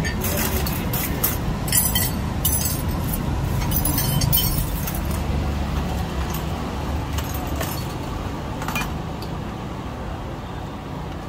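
Light clinks of glassware and utensils, several in quick succession in the first few seconds and sparser after, over a steady low rumble of road traffic.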